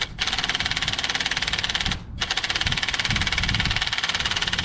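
Cordless impact driver hammering rapidly on the bolt of a blower motor's belly band, stopping briefly near the start and again about two seconds in. The bolt had not been sprayed with penetrating oil first.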